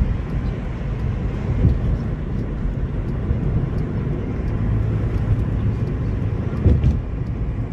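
Steady low rumble of a car driving, with tyre and engine noise heard from inside the cabin. There are two brief louder thumps, about a second and a half in and near the end.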